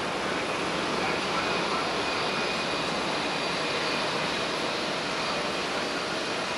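Airbus A320 jet engines running at low taxi power, a steady rushing noise with a faint high whine, as the airliner taxis and turns on the runway to line up for takeoff.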